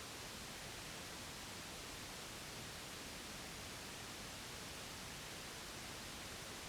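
Steady white noise: an even, unchanging hiss, of the kind played to lull a baby to sleep.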